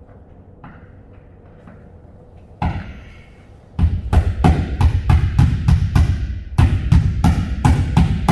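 Hammer blows against the ceiling of a refrigerated trailer, driving in a fastener to rehang a loose air chute: one knock about two and a half seconds in, then a fast, loud run of strikes about three a second.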